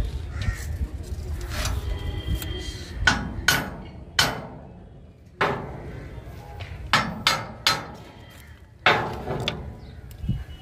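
Hammer blows on steel: about eight sharp, irregular strikes, each ringing briefly, over a low steady rumble.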